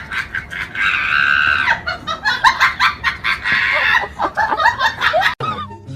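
An animal's rapid run of short, pitched squawking calls, with one longer held call about a second in.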